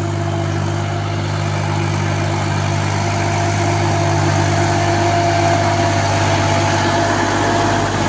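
Massey Ferguson 254 tractor's diesel engine running steadily while it works through a flooded paddy field on cage wheels, growing a little louder as the tractor comes closer.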